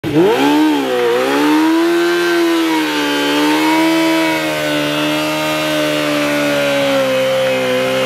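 Kawasaki Ninja sport bike with an aftermarket Muzzy exhaust revved hard during a burnout. The engine shoots up and dips once about a second in. It then climbs again and is held at high revs with a slight waver while the rear tyre spins.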